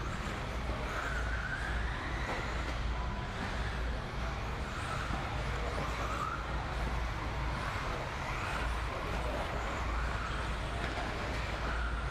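Electric 4WD RC buggies with 13.5-turn brushless motors racing on an indoor dirt track: motor whine rising in pitch again and again as the cars accelerate, over a steady low hum.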